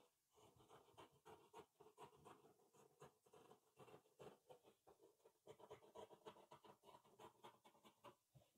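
Faint, rapid snipping of scissors cutting through blouse fabric, with the cloth scraping and rustling against the table as it is handled.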